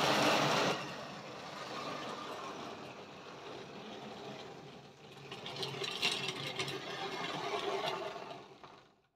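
Model railway tank locomotive running round the layout with its wagons: the whirr of its small electric motor and the rattle of wheels on the track, loud at first, quieter in the middle, swelling again, then cutting off just before the end as the power is switched off.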